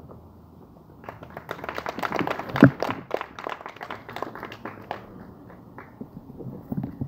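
A small audience applauding by hand, starting about a second in, densest in the middle and thinning out near the end.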